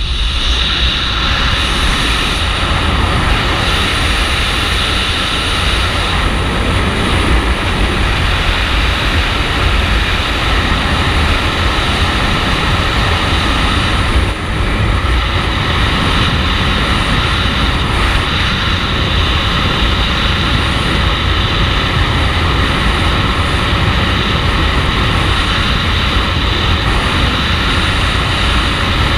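Wind rushing hard over the camera's microphone in wingsuit flight: a steady, loud roar with a deep rumble under a hiss, briefly easing about halfway through.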